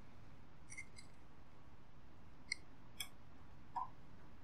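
About five faint, short clicks and ticks, spaced unevenly, over low steady room hiss.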